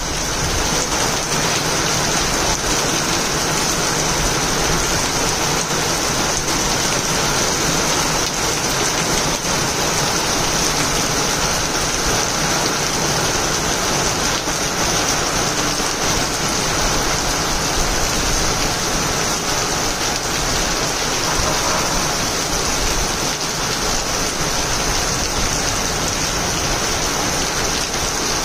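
Rain falling steadily on wet cobblestones, a dense, even hiss of drops.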